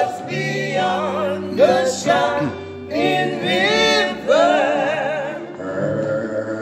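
A man and three older women singing a gospel song, the man's voice through a microphone: long held phrases with wavering pitch over sustained low notes.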